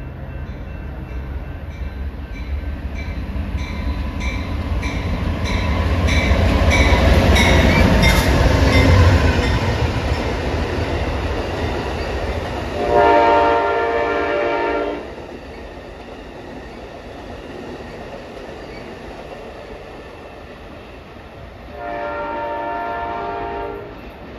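Amtrak Superliner passenger train, led by diesel locomotives, rumbling through at speed. The rumble grows loudest about eight seconds in, with an evenly spaced ticking about twice a second as it nears. The locomotive's horn then sounds two long blasts of about two seconds each, one about halfway through and one near the end.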